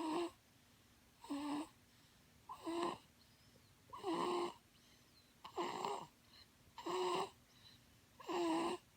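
Snoring: short, regular snores, seven in all, about one every second and a half, with quiet breaths between.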